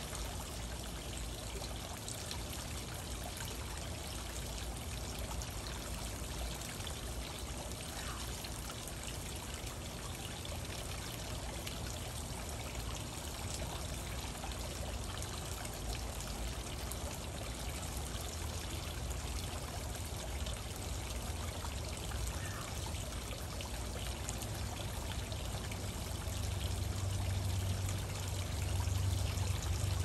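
Small bell-shaped pond fountain, its dome of water falling back onto the pond surface in a steady splashing trickle. A low rumble builds up near the end.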